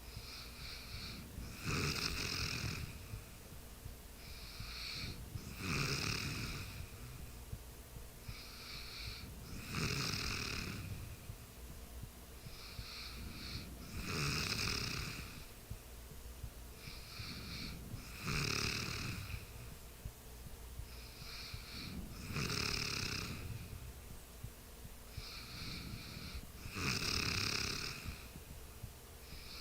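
A person snoring in sleep, one loud snore about every four seconds with a softer breath sound between them.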